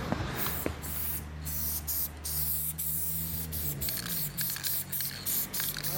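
Aerosol spray paint can hissing in many short bursts as graffiti is sprayed onto a wall, with a low steady hum underneath.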